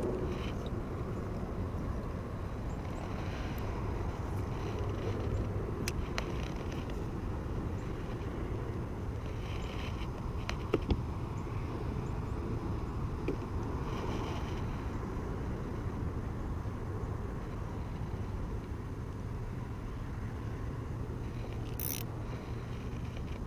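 A steady low mechanical hum runs on under faint outdoor noise, with a few small clicks and a sharp double click about eleven seconds in.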